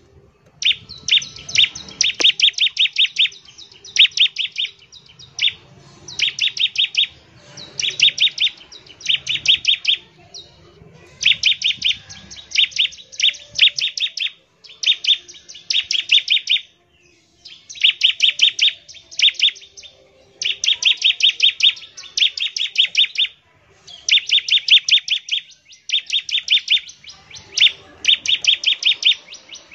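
Bar-winged prinia (ciblek) singing in repeated bursts, each about a second long, of rapid, evenly spaced sharp high notes, with short pauses between bursts.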